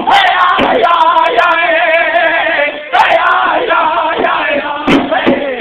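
Group of pow-wow singers chanting together in wavering voices, with a few sharp drum strikes.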